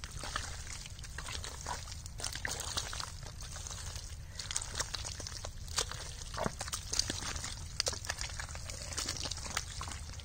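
Bare hands digging and groping through thick wet mud: irregular squelches, wet slaps and sucking pops.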